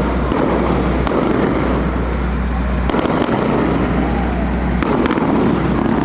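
Fireworks display: a few sharp bangs over continuous crackling and background noise.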